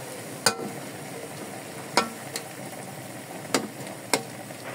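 Meat and carrots sizzling in a metal wok while a metal spatula stirs them. The spatula strikes the wok with sharp clanks about five times.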